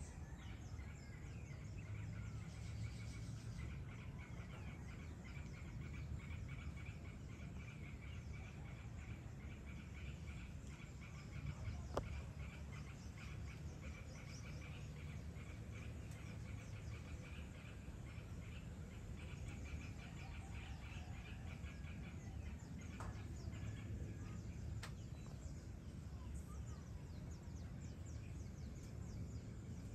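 Outdoor evening ambience: continuous rapid high chirping over a steady low rumble, with a single sharp click near the middle.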